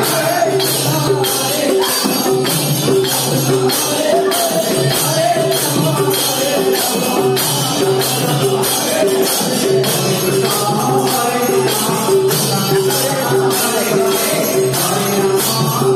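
Devotional bhajan music, mostly instrumental: a melody line over a steady percussion beat of about two strokes a second.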